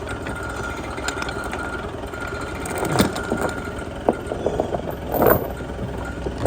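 An engine running steadily with a thin steady whine, and a few sharp knocks and clanks about three, four and five seconds in as the stuck machine is pushed and dragged.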